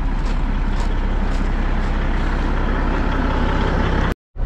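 Kenworth T800 dump truck's diesel engine idling steadily, with footsteps crunching on gravel about twice a second. The sound cuts out briefly near the end.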